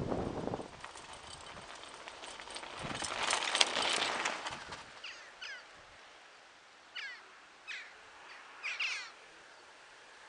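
A bicycle rolling past close by about three seconds in, its tyres hissing on the lane, with some ticking. Then several short bird calls, each falling in pitch, in the quiet moorland air.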